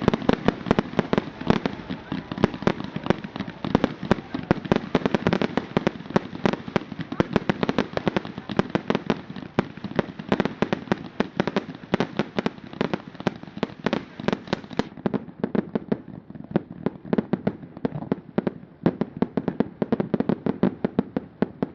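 Fireworks going off in a dense, rapid run of bangs and crackles, several a second. After about fifteen seconds the volley thins and gets somewhat quieter.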